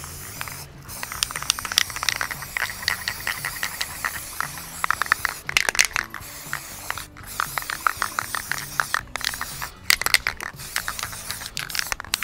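Aerosol can of Rust-Oleum spray enamel hissing in long passes that stop briefly several times, over background music.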